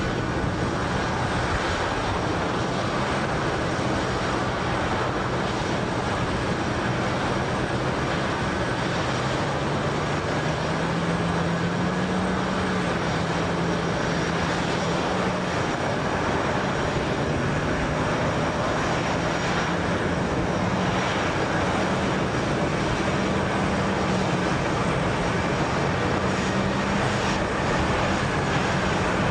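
Lockheed C-5 Galaxy's four turbofan engines droning as the transport jet flies low on approach with its landing gear down. A steady rumbling roar with a low hum that wavers and rises a little in pitch.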